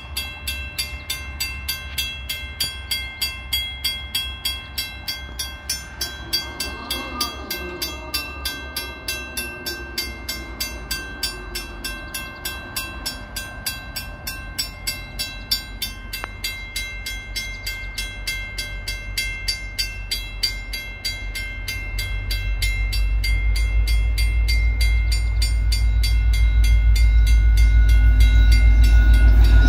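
Railway crossing warning bell ringing in a rapid, even rhythm. From about two-thirds of the way through, the rumble of an approaching VIA Rail EMD F40PH diesel locomotive grows until it is the loudest sound.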